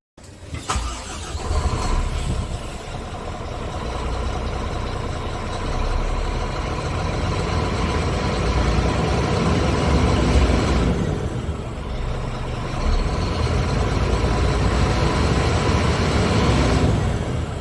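Scania P380's DC13 diesel engine starting up, then running steadily, with a couple of shifts in tone partway through and near the end.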